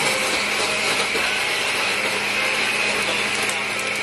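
Countertop blender motor running steadily, a continuous whirring drone.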